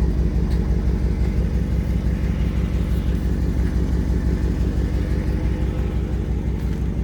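Muffler-deleted V8 exhaust rumbling at a steady engine speed, a deep even pulsing with no revving.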